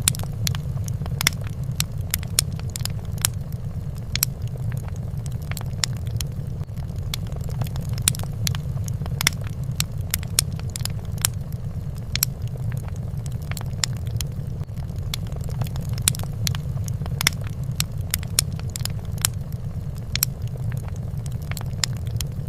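Fireplace fire crackling: frequent irregular sharp pops and snaps over a steady low rumble.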